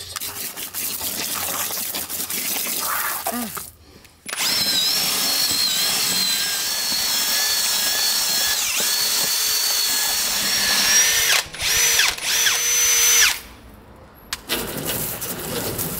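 Ryobi cordless drill with a paddle mixer spinning in a plastic bucket, mixing plaster with water, with a steady whine. It stops briefly about four seconds in, then runs again before a few short bursts near the end.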